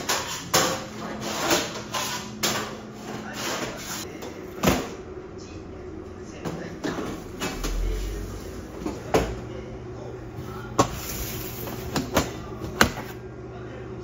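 Kitchen work noises: scattered knocks, clicks and clatters of equipment being handled, with a dull low thud about eight seconds in.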